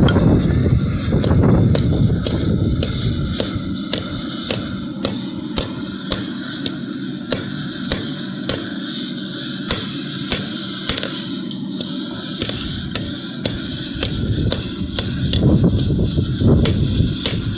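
Hand hammer striking hot steel on an anvil in a steady rhythm, about one and a half sharp blows a second, over a steady low rumble.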